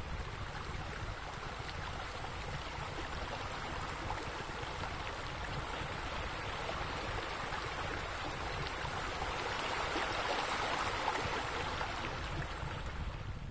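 Steady splashing water from a bubbling-boulder fountain, growing a little louder about ten seconds in.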